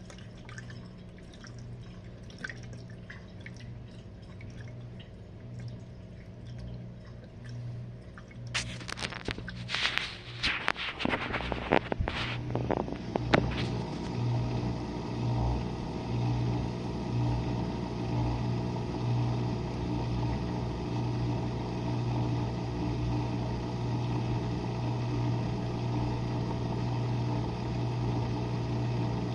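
Jenn-Air dishwasher mid-cycle: faint dripping over a low hum, then about 9 seconds in a few seconds of loud splashing and clatter. From about 14 seconds in, the pump motor runs steadily with a strong low hum as the wash continues.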